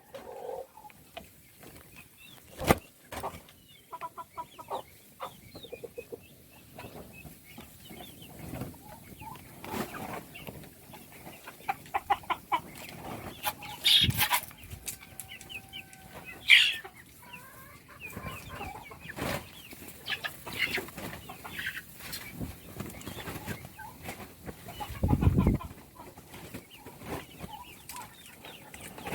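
A flock of baby chicks cheeping in short high calls while feeding, with many small taps and clicks. There are a few louder knocks and one heavy thud about three-quarters of the way through.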